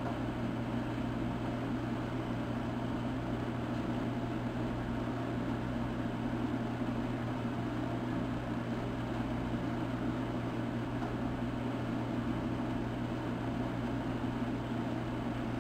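Steady background hum with an even hiss over it, unchanging throughout, with no distinct events.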